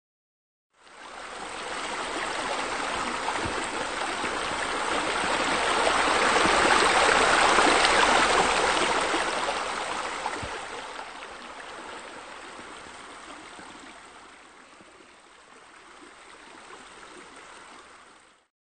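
Running, splashing water like a fountain or small waterfall, a steady rush that comes in about a second in, swells to its loudest about halfway, then fades and cuts off just before the end.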